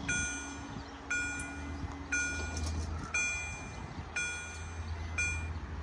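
Level-crossing warning bell striking about once a second, each stroke a clear ringing tone, while the barrier arms come down. A low hum, from the barrier drive lowering the arms, stops about two and a half seconds in.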